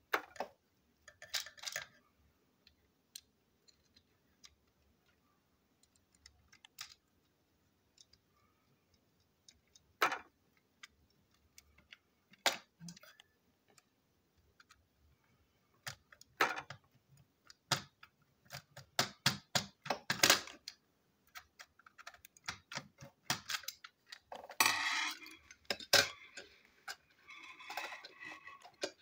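Small screwdriver clicking and scraping against the screws and plastic base of a toy train engine as it is screwed back together, in irregular sharp ticks that come thicker in the second half. Near the end, a longer stretch of rattling as the toy is handled and set down.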